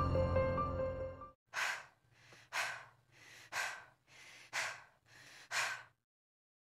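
Eerie horror ambience music fades out about a second in. Then a person breathes heavily and fearfully, a loud breath about once a second with softer breaths in between.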